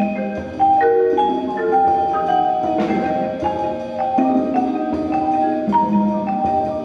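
Percussion ensemble playing a busy passage on marimbas and other mallet keyboard instruments: a stream of struck, ringing pitched notes in several parts at once. A single sharp hit comes about three seconds in.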